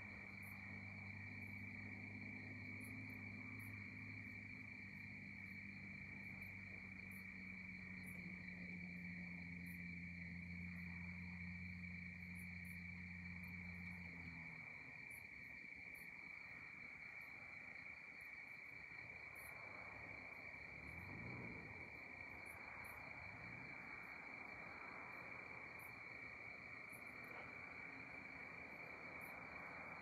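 Crickets trilling in a steady night chorus, with scattered short high insect ticks above it. A faint low hum runs underneath and stops about halfway through.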